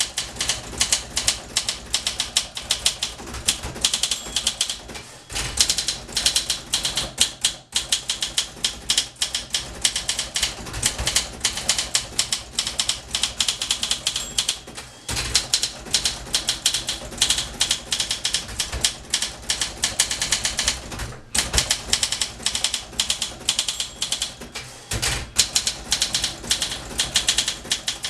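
1961 Olympia SM 4 portable typewriter being typed on fast, a rapid run of key strikes broken by brief pauses a few times.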